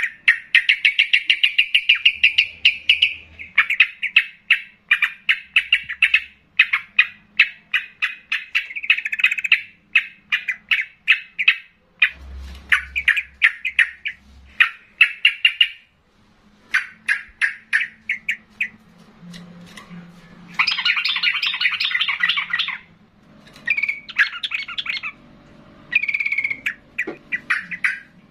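A caged trucukan (yellow-vented bulbul) singing loudly: fast runs of sharp chattering notes broken by short pauses, with a denser, fuller burst of song about twenty seconds in.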